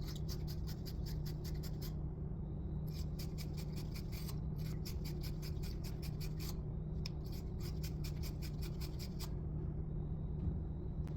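Wire fitting brush scrubbing the inside of copper pipe fittings to clean them for soldering: quick, repeated scratching strokes in runs, with brief pauses, over a steady low hum.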